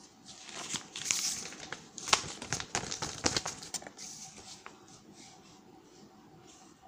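Paper sheets rustling and crinkling as they are handled and shifted: a run of crackles starting about half a second in, loudest in the middle, dying away about four seconds in.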